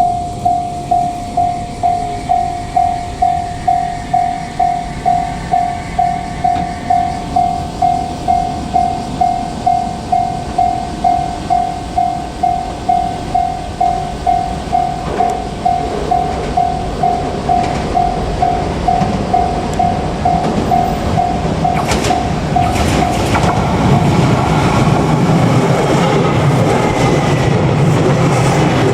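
Japanese level-crossing warning bell ringing a steady electronic ding about one and a half times a second. It stops about 24 seconds in, by which time a JR Kyushu 817 series electric train is approaching. The train then passes over the crossing with rising rumble and wheel clatter over the rail joints.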